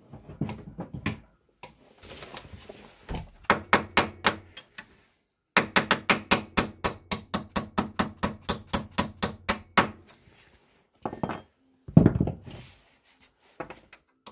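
A 15 mm wrench working the nuts on an ATV's lower ball joint: runs of rapid, even metallic clicks, about six a second for several seconds. A heavier single knock follows about twelve seconds in.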